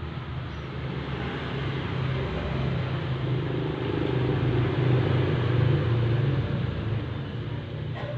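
A motor vehicle passing on the road, its engine hum and road noise growing louder to a peak about five seconds in and then fading.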